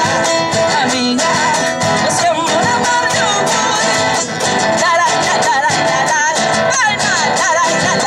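A woman sings a Spanish-language song with vibrato into a microphone, accompanied by strummed acoustic guitar.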